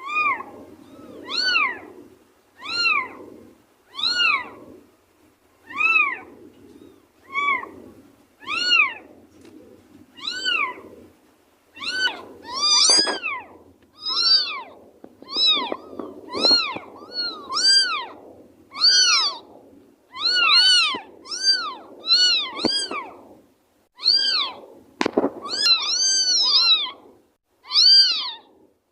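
A cat and kitten meowing: short high meows that rise and fall, about one every second and a half. From about halfway they come faster and overlap, two voices calling at once. One sharp click late on.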